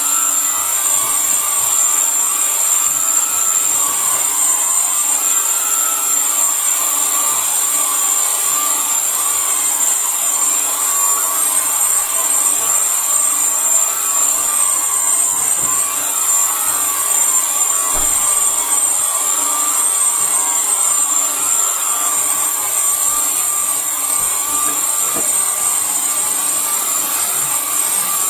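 Vevor ultrasonic vinyl record cleaner running: a loud, steady, noisy hiss from the ultrasonic tank with a constant high whine over it.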